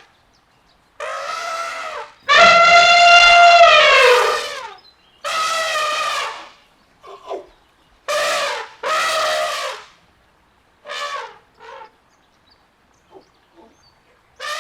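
Elephant trumpeting: a string of about eight brassy calls, some short and some held. The loudest and longest comes about two seconds in and drops in pitch as it ends.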